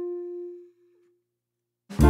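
A held musical note fades out within the first second, followed by about a second of silence; just before the end, the next loud piece of music starts abruptly.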